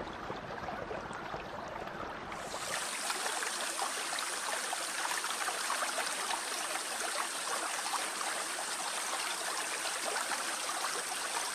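Water flowing and trickling in a shallow channel. About two and a half seconds in, the sound turns brighter and hissier, like faster water rushing over a step.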